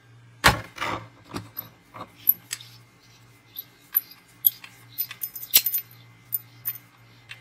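Metal clicks and clacks from a folding portable shovel's hinge as its steel blade is swung and set into the hoe position, with a loud clack about half a second in, a scatter of lighter metallic ticks, and another sharp clack near the middle.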